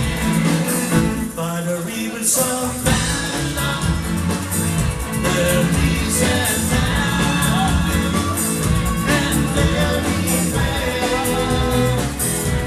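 Live band playing a song with singing, drums with cymbals, and bass.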